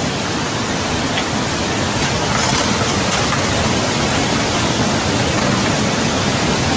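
Loud rushing floodwater, a steady dense rush of noise that begins and cuts off abruptly.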